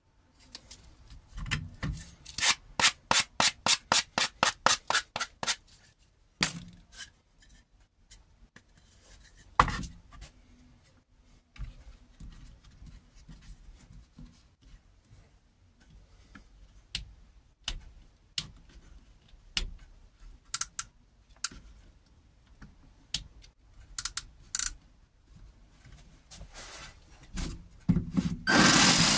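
Quick rubbing strokes of a sandpaper-wrapped stick, about four a second for three seconds, then scattered knocks and scrapes of a wooden board handled on a saw table. Near the end the Parkside 12 V cordless reciprocating saw's motor starts running steadily.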